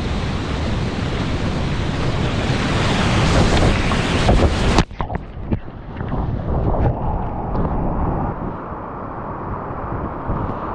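Whitewater rushing loudly around a kayak running a river drop, building to a peak. About five seconds in, the sound suddenly goes dull as the camera plunges into the foam at the bottom. Muffled rushing water and a few sharp splashes follow.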